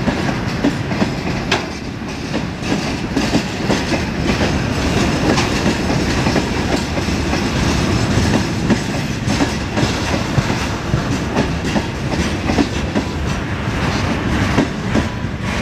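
Freight wagons rolling past, their wheels clacking over the rail joints in a continuous string of knocks over a steady rumble.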